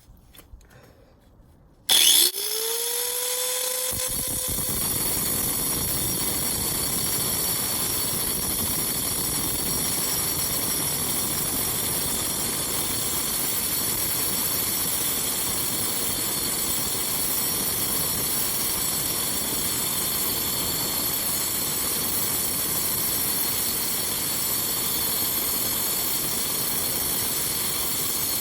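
Angle grinder switched on about two seconds in, its whine rising as the motor winds up to speed, then a steady loud grinding as the disc cuts into a quartz geode.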